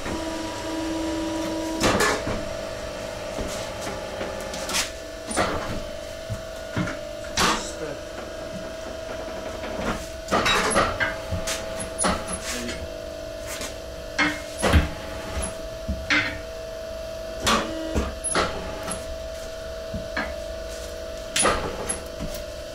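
Truck tyre being levered onto a steel rim on a tyre changer with a long steel tyre bar: irregular metal clanks and knocks, several a few seconds apart, over a steady machine hum.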